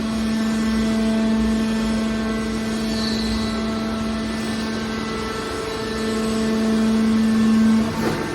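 Hydraulic scrap-metal baler running with a steady mechanical hum. The hum grows louder near the end, then cuts off.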